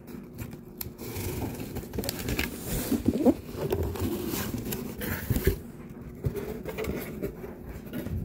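Cardboard shipping box being opened by hand: the lid and flaps scraping and rubbing as they are pulled open, with a few light knocks, the sharpest about three seconds in.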